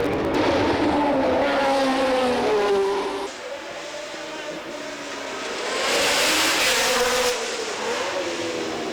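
1970s Formula 1 race car engines: one engine's note falls steadily in pitch for about three seconds, then the sound drops away abruptly. A quieter engine note follows, with a burst of broad rushing noise a few seconds later.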